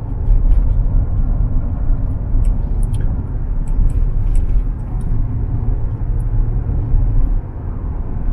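Strong wind buffeting the microphone: a loud, uneven low rumble that swells and dips.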